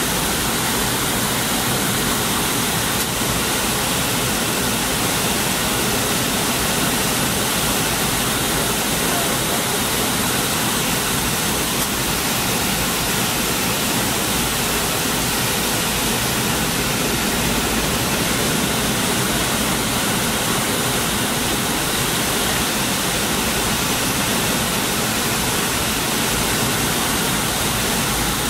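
Steady cabin noise inside a McDonnell Douglas MD-80 airliner descending on approach, the rush of airflow and engine noise heard at a window seat. It holds an even level throughout with no change.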